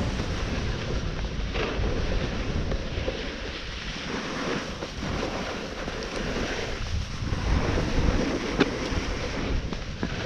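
Snowboard sliding and scraping over snow on a downhill run, a steady rushing hiss that swells and fades with the turns, mixed with wind noise on the camera microphone. One sharp knock comes near the end.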